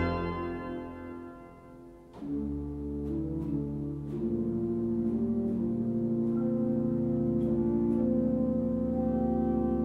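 Klais pipe organ: a loud full chord is released and rings away in the church's reverberation over about two seconds. About two seconds in, a soft registration enters with held chords over a steady bass, the tone wavering in a slight regular pulse.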